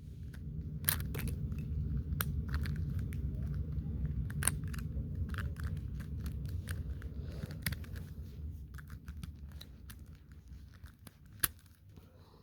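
Plastic puzzle cube being handled and worked by hand: scattered sharp clicks and snaps of cube pieces over a low rumble of handling, which fades after about eight seconds.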